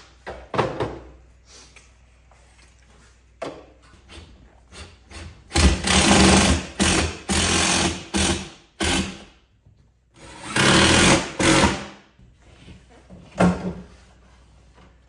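Cordless drill running in bursts of a second or two, driving screws into a wooden cabinet. The bursts come in one cluster around the middle and one more shortly after, with light knocks and handling clicks between them.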